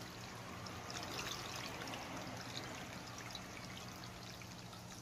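Water running in a steady trickle, with faint clicks of chewing over it.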